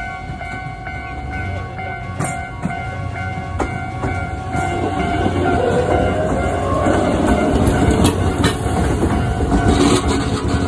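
An Iga Railway electric local train passes close by at a level crossing, its wheels rumbling and clacking over the rail joints, loudest about halfway through to near the end. Under it, the level-crossing warning bell keeps ringing its steady repeating tones.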